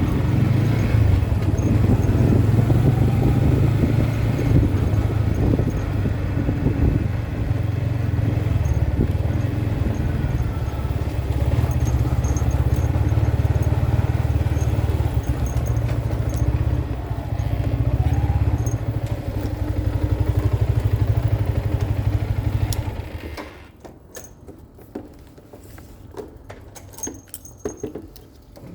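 Yamaha MT-15's 155 cc single-cylinder engine running steadily with a low rumble. The engine noise stops abruptly about 23 seconds in, leaving a few quiet clicks and rattles.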